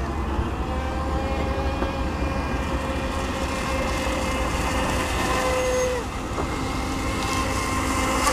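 X-Blaze RC speedboat's water-cooled brushless outrunner motor whining at speed across the water, its pitch dropping about six seconds in as the throttle eases, over a steady low rumble.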